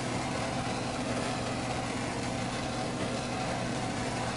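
Steady hiss of a propane torch flame played against the rim of a wooden plate spinning on a running wood lathe, over the lathe's even low hum. The torch is scorching the wood.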